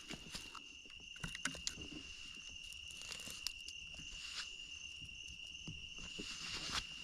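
A steady high-pitched insect drone, like a cricket or katydid, with scattered crackles and snaps of leaves and twigs as someone walks slowly through brush.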